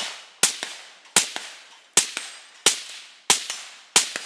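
Suppressed AR-15 rifle with a Dead Air Sandman S silencer firing a steady string of six shots, about one every 0.7 seconds. Each shot is a sharp crack followed by a fainter second report.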